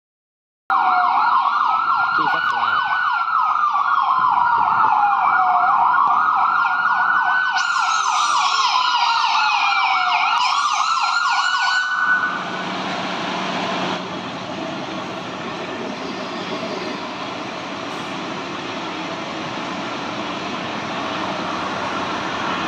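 Fire truck's electronic siren sounding a slow wail that rises and falls about every five seconds, with a second higher sweeping tone joining about halfway through. The siren cuts off suddenly, leaving the Scania pumper's diesel engine running as the truck rolls in.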